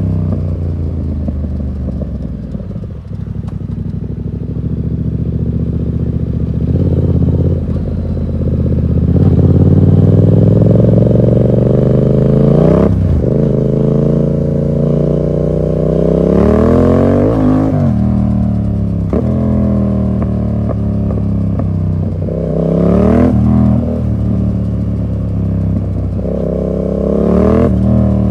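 A 2015 Yamaha MT-07's parallel-twin engine runs loud through an SC Project full exhaust with no dB killer. It is ridden hard: the revs climb and fall sharply several times, with short sharp cracks at some of the drops.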